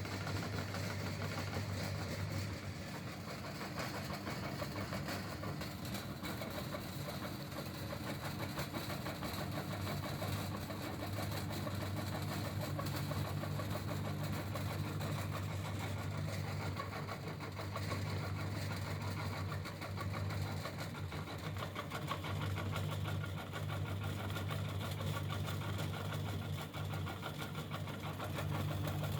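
Electric meat grinder running steadily under load, its motor humming while it crushes and pushes soap through the plate, with a fine continuous grinding rasp over the hum.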